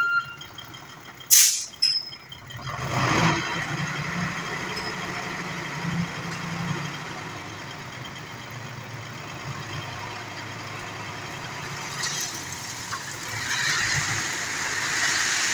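Nissan Diesel dump truck's engine speeding up and running steadily under load as its hydraulic hoist raises the tipper bed, after a short air hiss about a second in. Near the end a rushing noise builds as the gravel load slides out of the tilted bed.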